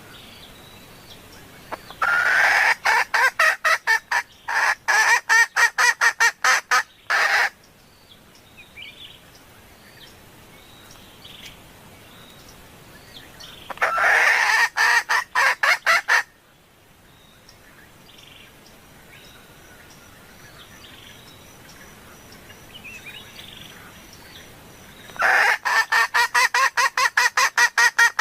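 Female red junglefowl hen calling in three bouts of rapid clucks, several a second: the hen's call to a male, used as a lure call.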